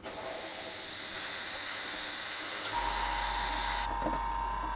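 Airbrush spraying paint in a steady hiss that cuts off suddenly after almost four seconds. A steady low hum with a thin tone starts shortly before the hiss stops.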